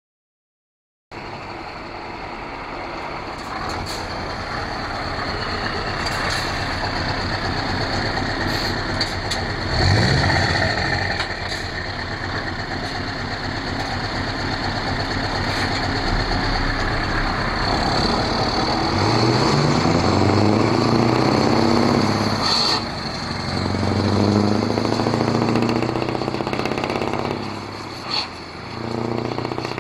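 Scania S650's 16-litre V8 diesel truck driving by on the road, engine and tyre noise, loudest as it passes close about a third of the way in. Later the engine note rises and falls as it pulls and changes gear, with a short sharp hiss about two-thirds of the way through.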